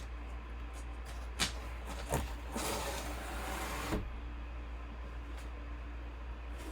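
A sealed cardboard box being opened and handled: two sharp clicks, then about a second and a half of rustling and scraping that ends in a knock, over a steady low hum.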